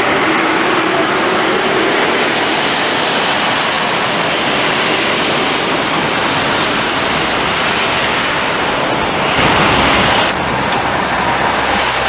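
Busy street traffic noise as a double-decker tour bus drives past and pulls away. About nine seconds in, a deeper diesel bus engine rumble builds and peaks briefly as an MCI D4500 coach-style city bus comes up and passes close.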